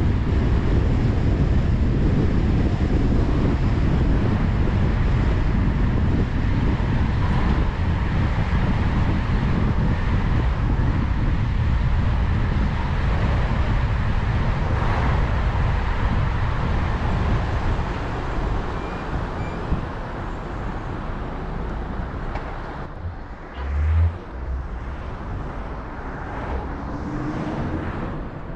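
Car driving on a highway: steady road and wind noise heaviest in the low end, growing quieter about two-thirds of the way through. A short low thump comes near the end.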